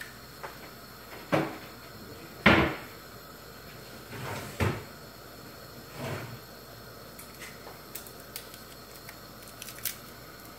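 Several sharp knocks and thuds like cupboard doors shutting, the loudest about two and a half seconds in, then a few light clicks near the end, over the faint steady sound of a pot of soup boiling on a gas hob.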